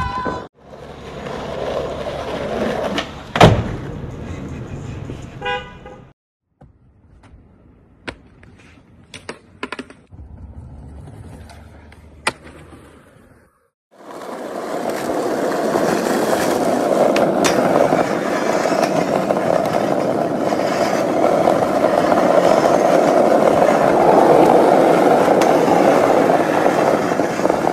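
Skateboard sounds. A sharp clack of the board comes a few seconds in, then a quieter stretch with a few scattered clicks. From about halfway, skateboard wheels make a loud, steady rumble rolling over asphalt.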